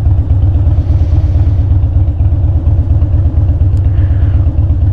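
Harley-Davidson Dyna's V-twin engine running steadily while riding, a low, even beat of firing pulses.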